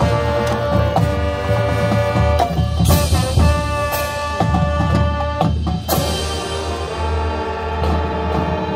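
High school marching band playing its field show: brass holding sustained chords over drumline and pit percussion, with loud cymbal and drum hits about every three seconds.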